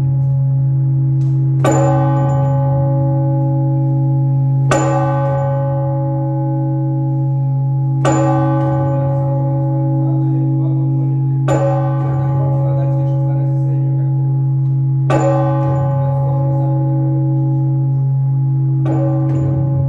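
Large Orthodox church bell struck slowly and evenly, six strokes about three and a half seconds apart, each ringing on over the deep hum left by the one before. It is the measured single-bell ringing that calls to the Sunday service.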